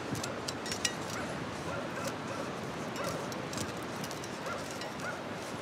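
Short animal cries over a steady rushing background noise, with scattered sharp clicks.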